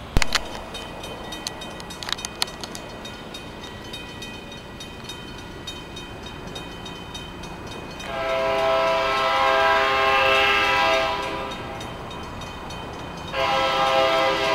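Locomotive air horn sounding a chord of several notes for a grade crossing: one long blast about eight seconds in, lasting some three seconds, and another starting near the end. Before the horn, the crossing signals' bell rings steadily.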